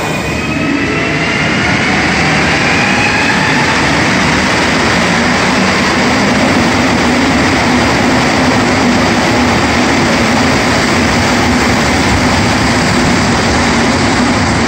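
Rubber-tyred Montreal Metro Azur (MPM-10) train pulling out of the station. Its traction motor whine rises in pitch as it accelerates over the first few seconds, then the cars run past with a loud, steady rush.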